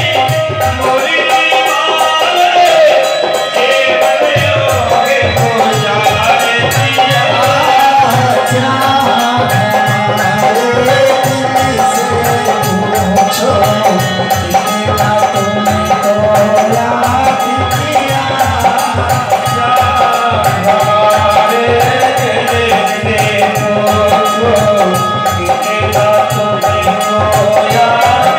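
Live Indian devotional bhajan music: a harmonium-like melody over a steady hand-drum beat, with rattle or shaker percussion.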